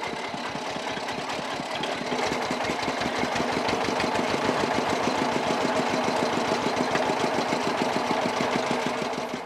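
Engine driving a sugarcane-juice crusher through a belt, running steadily with a fast even chugging, a little louder about two seconds in as cane is fed through the rollers.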